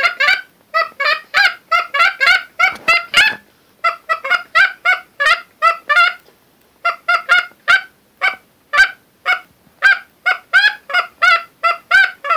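Homemade lathe-turned goose call blown by mouth, giving rapid runs of short goose-like honks, three or four a second, broken by two short pauses.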